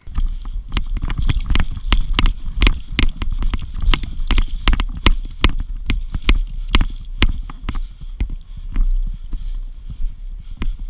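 Footsteps of a person walking briskly on dirt, about two to three steps a second, with wind rumbling on the microphone; the steps thin out near the end.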